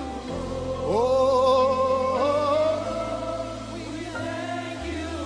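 Gospel worship music: a singing voice slides up into a long held, wavering note about a second in, over steady low sustained backing chords.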